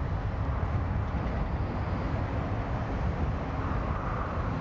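Boeing 737-800's CFM56-7B turbofan engines at takeoff thrust as the jet lifts off and climbs away: a steady rumble.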